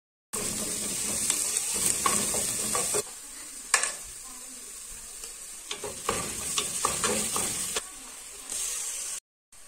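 Chopped onion frying in oil in a stainless steel pot with a steady sizzle, stirred with a wooden spoon that clicks and knocks against the pot. The sizzle is louder for the first few seconds, then quieter.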